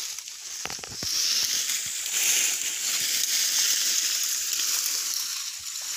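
A few sharp chopping blows of a hand-held blade into wood about a second in, with fainter strikes later, over a steady high hiss that is the loudest part of the sound.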